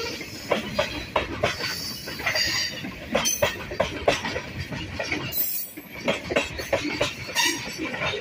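Freight train of tank cars rolling past: the steel wheels knock and clack irregularly over the rail joints, with a few brief high-pitched wheel squeals.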